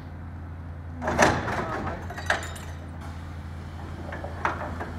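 Demolition excavator with a hydraulic shear attachment breaking up a steel-framed building, over the steady drone of its engine. About a second in there is a loud crunching, scraping crash of metal and masonry, followed by a few sharp metallic bangs.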